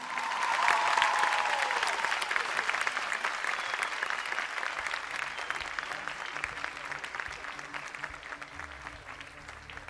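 Studio audience applauding at the end of a song, loudest about a second in and slowly dying away.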